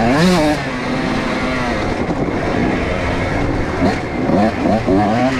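125cc two-stroke dirt bike engine running hard under throttle. Its pitch climbs at the start, holds fairly steady, then rises and falls in quick swings through the second half as the throttle is worked.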